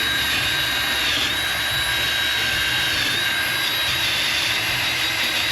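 Handheld power tool running at a steady high whine with a hiss, cleaning up the broken aluminium outdrive housing.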